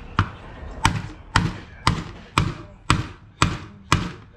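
Steady metallic tapping, about two strikes a second, each strike ringing briefly: a tool striking metal during engine work on a Jeep 3.6 Pentastar.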